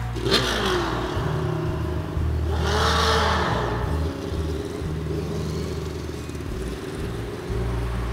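Motorcycle engine, its carburetors just retuned, revving as the bike rides past. The pitch rises and falls twice and is loudest about three seconds in.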